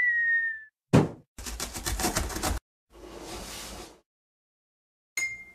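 Cartoon sound effects for an animated intro. First comes a short tone falling slightly in pitch, then a sharp thump about a second in. A rapid rattle of about ten knocks a second follows for just over a second, then about a second of hissing rush, and near the end a bright ringing ping.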